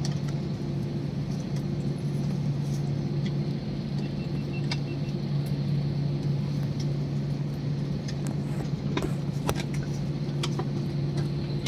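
Airliner cabin noise while taxiing: a steady drone from the jet engines at idle with a low, even hum, and a few light clicks.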